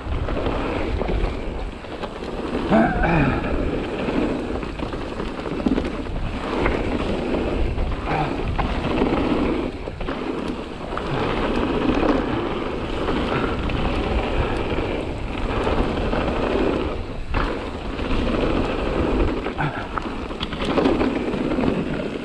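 Mountain bike riding a rough trail: tyres rolling over gravel and rock with a steady surging noise, wind rumbling on the microphone, and occasional sharp knocks from the bike.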